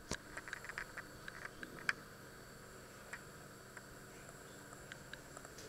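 Water simmering in a pot beneath a perforated steel steamer insert: irregular small ticks and pops, thickest in the first two seconds and sparser after, over a steady faint hiss of steam.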